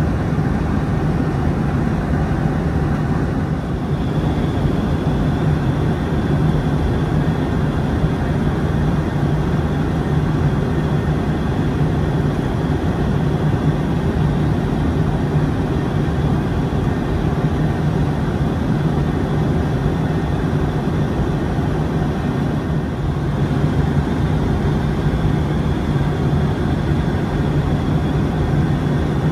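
Steady cabin noise of a Boeing 757-200 airliner, engine and airflow drone with a low hum. A faint high whine comes in about four seconds in.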